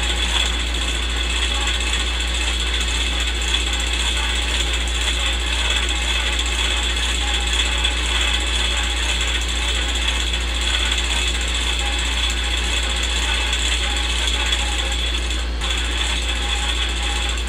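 Old film projector running as a sound effect: a steady, even mechanical clatter of the film transport over a constant low hum and hiss.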